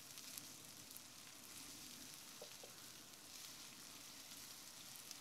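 Faint sizzling of sliced onions and ginger-garlic paste frying in oil in a non-stick pan, stirred with a wooden spatula that gives a couple of light taps about halfway through.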